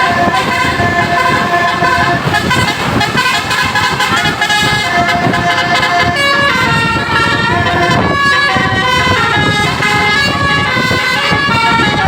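Bus basuri telolet horn playing a melody: a loud, unbroken run of multi-tone horn notes that step from pitch to pitch.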